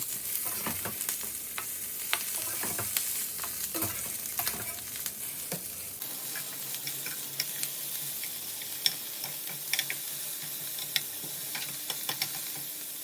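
Fennel frying in olive oil in a skillet: a steady sizzle with scattered clicks and taps of a utensil stirring the pan.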